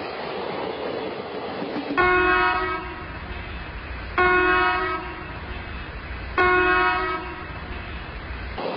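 Indian Railways locomotive horn sounding three blasts of under a second each, evenly spaced about two seconds apart, over the steady running noise of the train.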